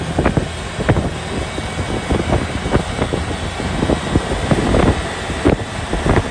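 Jeep in motion, with wind buffeting the microphone and frequent irregular knocks and rattles over a steady rush of noise.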